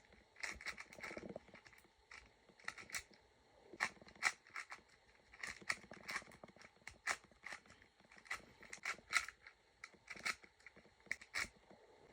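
Plastic 4x4 speed cube being turned with one hand: quick irregular runs of sharp clicking and clacking as the layers snap into place, with short pauses between the runs.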